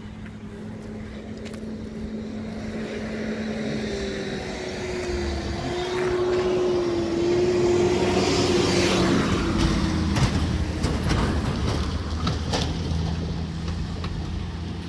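Motor vehicle engine noise with a steady drone, swelling to its loudest about eight seconds in and then easing off.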